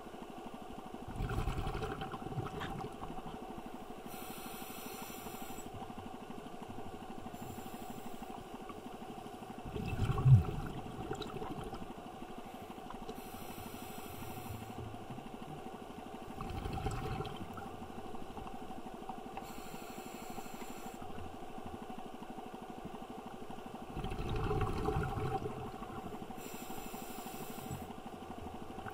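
Underwater sound picked up by a swimmer's camera on a reef dive: a steady faint hum. Over it, hissing and low bubbly rumbles come every few seconds, typical of a diver's breathing, with one louder knock about ten seconds in.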